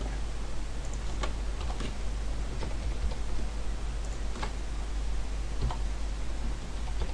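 Sparse clicks of computer keys, roughly one a second, over a steady low hum.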